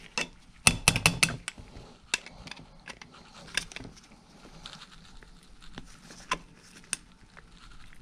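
Needle-nose pliers working a small steel retaining clip onto the parking-brake lever pin of a drum brake shoe, pressing against a wavy washer: a quick cluster of sharp metallic clicks about a second in, then single clicks and small scrapes every second or so.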